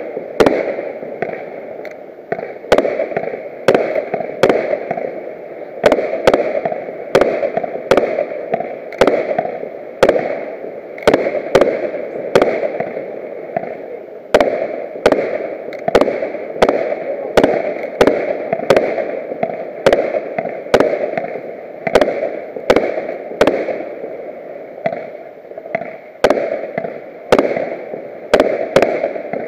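Aerial fireworks bursting in a steady series, about one sharp bang a second, each followed by a short fading rumble.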